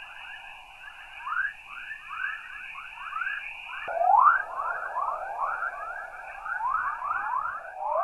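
NASA recording of the dawn chorus, radio waves from electrons in Earth's radiation belts heard as sound: a dense stream of quick rising chirps, several a second, over a steady hiss, remarkably like birds singing at dawn.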